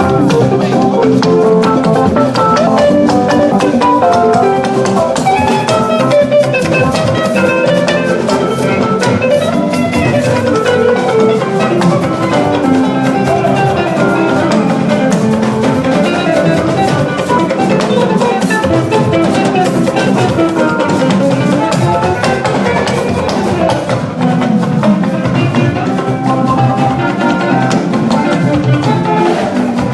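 Loud live music with a drum kit keeping a steady beat under pitched instruments.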